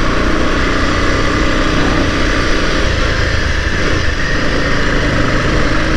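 Motorcycle running at a steady cruise while being ridden, with a constant rush of wind and road noise over the microphone.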